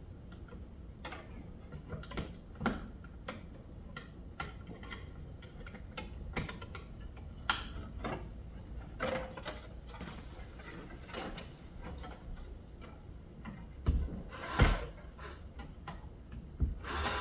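Irregular light clicks and taps of hand tools and a copper ground wire being worked at an electrical switch box while the ground wire is fastened in place, with two louder knocks near the end.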